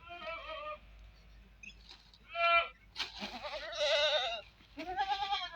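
Goats bleating: four separate calls, the longest one quavering from about three seconds in.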